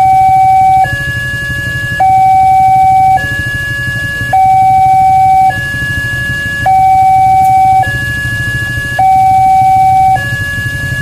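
Railway level-crossing warning alarm sounding, alternating between a higher and a lower tone, each held a little over a second, the higher one louder, about four high-low cycles, over a low rumble. This signals that a train is approaching and the crossing is closed.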